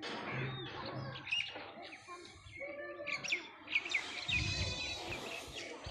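Birds chirping: many short, quick calls, with a low rumble about four seconds in.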